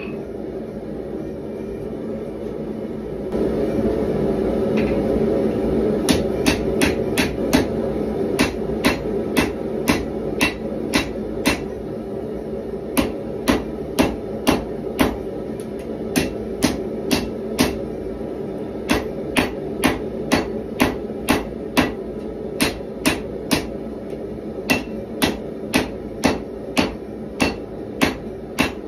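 Hand hammer striking red-hot 1095 carbon-steel bar stock on an anvil while forging a knife blade: sharp blows about two a second in runs with short pauses, starting about six seconds in. The forge's burner runs steadily underneath.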